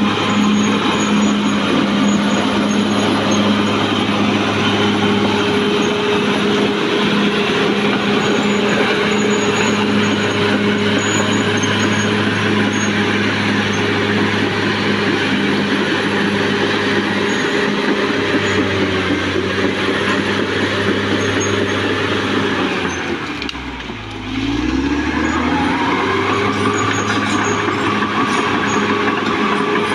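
Caterpillar D6R XL bulldozer's diesel engine running steadily under load. About three quarters through, the engine note drops sharply and then climbs back up, and a higher whine rises over it.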